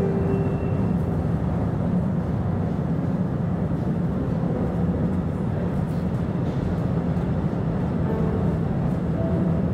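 Electric cave tourist train running steadily along its track through a cave passage, a continuous low rumble of wheels and motor.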